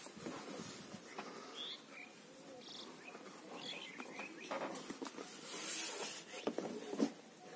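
Hands handling a laptop while lifting its lid open: soft rustling of the thin protective sheet over the keyboard, with light knocks and clicks, and two sharper clicks near the end.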